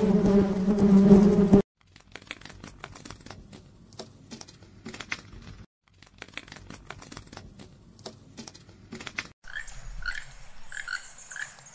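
A wasp's steady, low buzz for the first second and a half, cut off abruptly. Then faint, irregular crackling and ticking. From about nine seconds in, a keel-billed toucan gives short calls in quick succession, several a second.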